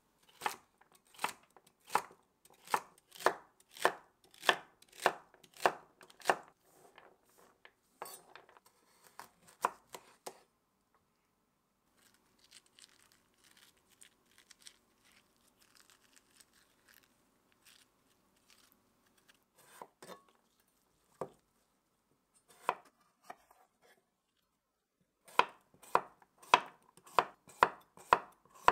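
Chef's knife chopping on a wooden cutting board in steady strokes, about one and a half a second, while celery is diced. Then a quiet stretch of faint scraping as a metal spoon scoops the seeds out of a halved chamoe (Korean melon), and near the end quicker knife strokes slicing the chamoe on the board.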